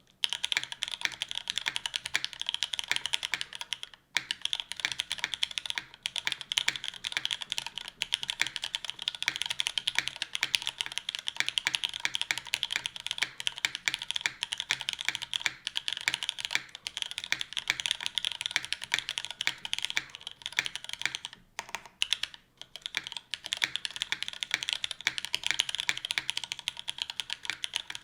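Fast, continuous typing on a Hineybush Ladybird mechanical keyboard: top-mounted aluminum plate, lubed and filmed Cherry MX Black linear switches, CRP keycaps. The keystrokes run densely, with a few brief pauses: one about four seconds in and a couple past the middle.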